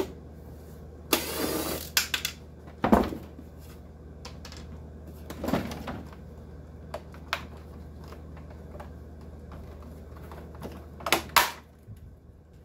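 Clicks, knocks and short rasping bursts from hand work on a dehumidifier's bucket-full switch as the unit is taken apart. A low steady hum runs under it and stops near the end.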